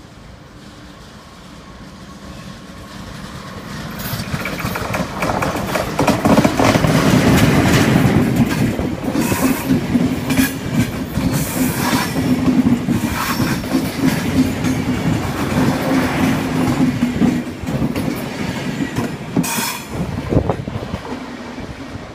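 SBB electric locomotive and double-deck intercity coaches passing through a station at speed. The rumble builds for the first few seconds and is loudest for about ten seconds as the coaches go by close, with a steady hum and a quick run of wheel clicks over the rail joints. It fades near the end as the train moves away.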